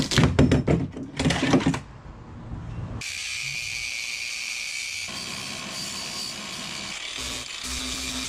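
Two loud, rasping bursts as the glued-on metal anchor guide on the fibreglass bow is worked loose. Then, from about three seconds in, a Makita angle grinder with a sanding wheel runs steadily, grinding gel coat and fibreglass off the deck.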